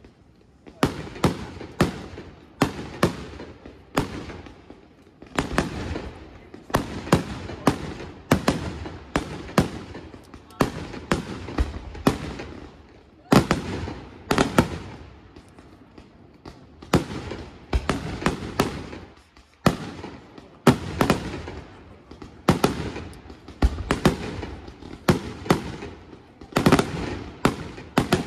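Aerial firework shells bursting overhead one after another, a sharp bang about once or twice a second, each trailing off in an echo.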